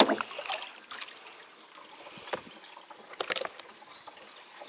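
Water splashing and knocks as a small black bass is brought in on a plastic measuring board and laid on it in a boat: a few short sharp sounds, with a cluster a little after three seconds.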